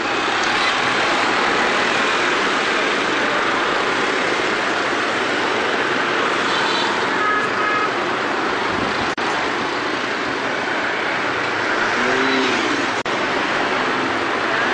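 Dense street traffic of motorbikes and cars running through a busy intersection, a steady din, with short horn beeps a little past the middle.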